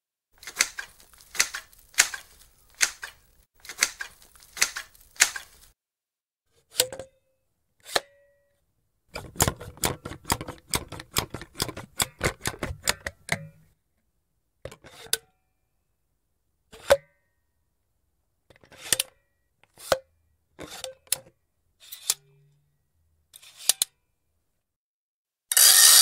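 Empty metal caulking gun worked by hand: the trigger and ratchet plate clack in clusters of sharp clicks, some ending in a short squeak, with a fast run of clicks midway. Near the end comes a longer metallic rattle as the piston rod is pulled back.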